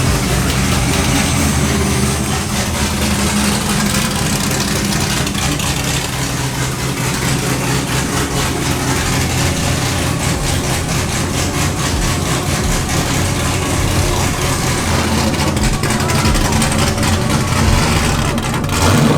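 Car engine running, with some revving.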